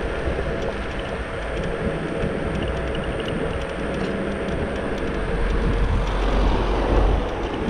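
Riding noise of a Xiaomi Mi Pro 2 electric scooter: steady hiss of the tyres on asphalt and rattle of the ride, with a low wind rumble on the microphone that swells about five and a half seconds in and eases near the end.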